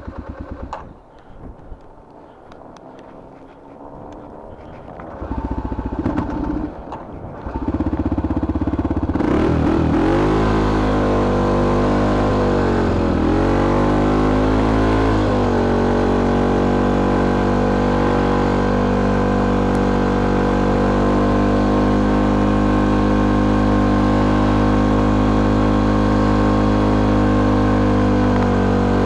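A vehicle engine cranks briefly, catches about nine seconds in, and runs. Its speed dips and recovers once, then it settles into a steady idle.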